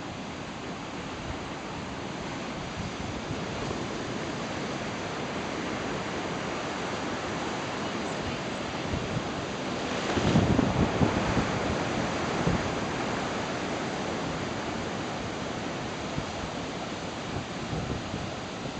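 Ocean surf breaking: a steady wash of waves that swells louder for a couple of seconds about halfway through, with some wind on the microphone.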